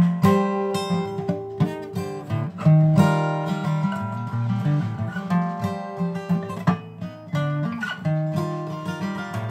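Acoustic guitar being played solo: a run of strummed chords and picked notes, each ringing on after it is struck.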